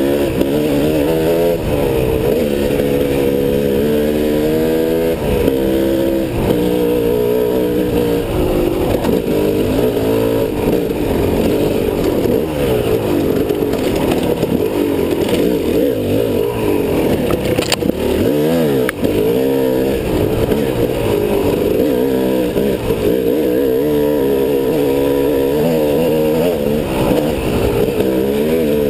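Dirt bike engine running while being ridden, its revs rising and falling over and over with the throttle. There is a sharp knock about two-thirds of the way through.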